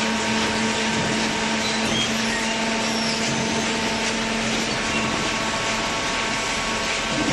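Hydraulic carton box baler running: the steady hum of its motor and hydraulic pump, with a constant low tone under a broad hiss.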